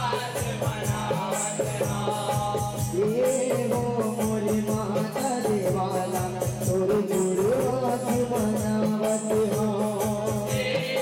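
Devotional folk song: rapid, steady clacking of red wooden khartal clappers over steady held low tones, with a male voice singing a wavering melody from about three seconds in.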